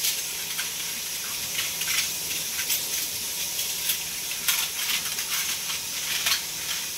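Kitchen tap running into the sink as silverware is washed, with light metal clinks of forks knocking together scattered through.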